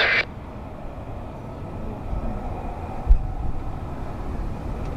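Low, steady rumble of a distant jet aircraft, building slightly toward the end, with a brief low thump about three seconds in. A transmission from an airband radio scanner cuts off right at the start.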